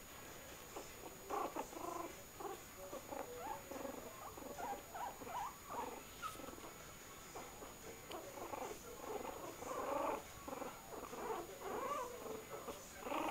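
Two-week-old puppies cooing like pigeons: many short, pitched coos and grunts one after another, starting about a second in and going on throughout.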